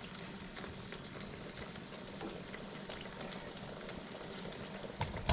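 A pot of stewed chicken simmering in the juices from the meat: a steady bubbling with small pops and crackles. A sharp knock comes near the end.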